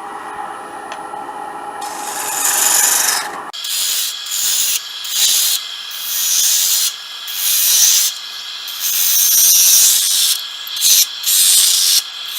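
A steady machine hum for the first few seconds, then repeated hissing strokes of abrasive rubbing against the cedar workpiece on the wood lathe, coming and going about once or twice a second.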